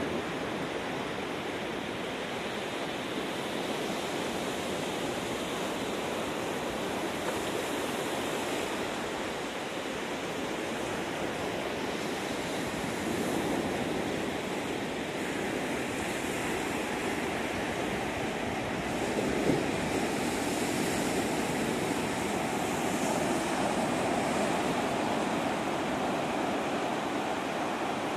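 Ocean surf washing onto a sandy beach, a steady rush that swells and eases, with one brief sharper knock about two-thirds of the way in.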